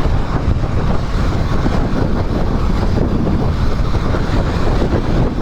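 Steady wind buffeting the microphone of a moving motorcycle, with the vehicle's engine and road noise underneath.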